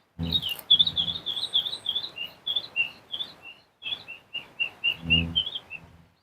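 A small bird singing a fast run of short chirping notes, several a second, swapping between a higher and a lower note. The song comes in two phrases with a short break in the middle.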